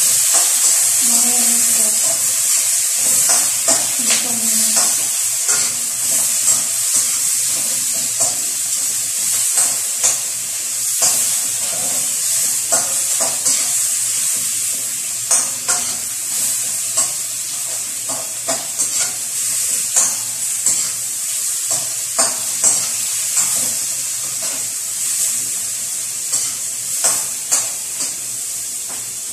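Shrimp and garlic sizzling steadily in hot oil in a wok while a spatula stirs and scrapes them, with frequent sharp clicks of the spatula against the pan.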